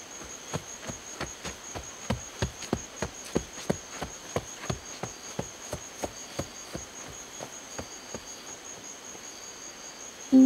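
Horses' hooves clip-clopping at a walk, about three steps a second, loudest in the first few seconds and fading out, over a steady high chirring of crickets.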